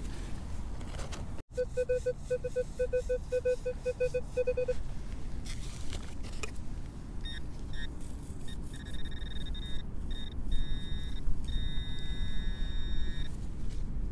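Electronic signal tones from metal-detecting gear (detector and pinpointer) locating buried metal. First a low beep pulses about three times a second for about three seconds, then a higher tone sounds on and off, briefly broken a few times, for about six seconds.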